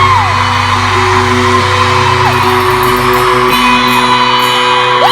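Live rock band in an arena holding sustained chords, with fans' high screams and whoops rising and falling over it. The low bass drops out a little past halfway.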